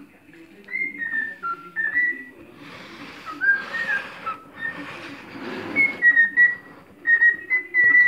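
Cockatiel whistling its song: a string of short, clear whistled notes, some sliding up or down in pitch. A stretch of rustling noise runs through the middle.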